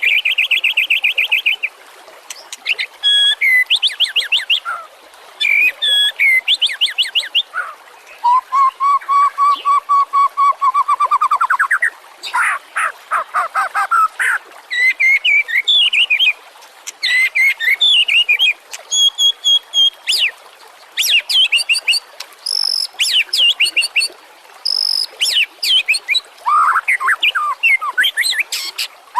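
White-rumped shama (murai batu) singing a long, varied song of clear whistles, fast repeated trills and short chattering phrases, with brief pauses between phrases. About a third of the way in it holds a long, lower trill that rises at its end.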